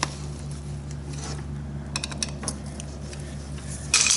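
Light metallic clicks and clinks of hand tools and small carburetor parts being handled as the screws are snugged down, over a steady low hum; a louder clatter comes near the end.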